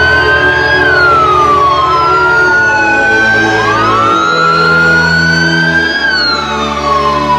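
Police car sirens on wail: each siren slowly rises and falls in pitch over roughly three seconds, and a second siren joins out of step about halfway through.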